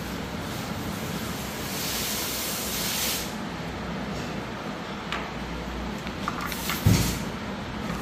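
Statue packaging being handled: plastic wrap or foam rustling in swells, a few light clicks, and a thump about seven seconds in, the loudest sound.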